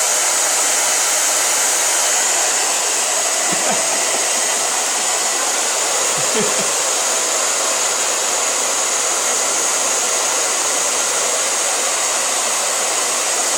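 Handheld hair dryer running steadily on its hottest setting, a continuous rush of blown air.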